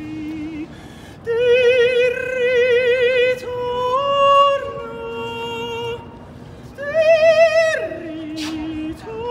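A street singer's solo voice holding long notes with a wide vibrato, breaking briefly between phrases and rising to its loudest, highest note about seven seconds in before dropping to a lower one.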